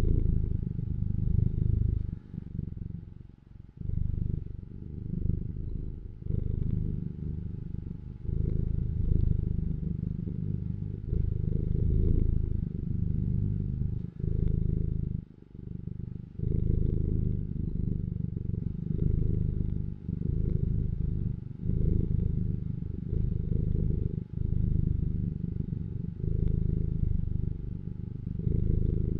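A cat purring, a low rumble that swells and dips with each breath, about every one and a half to two seconds.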